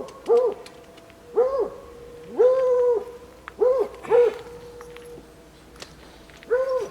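A dog whining in a string of about six short, even-pitched cries, one held longer near the middle, with a pause before the last.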